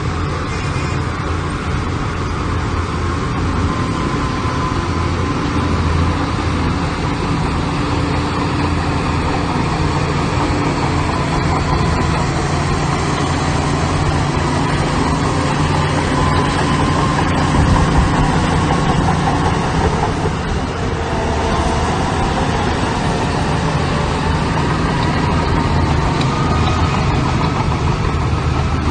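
Heavy construction-machinery diesel engines running steadily, with a fainter higher whine that wavers in pitch and a brief louder surge about eighteen seconds in.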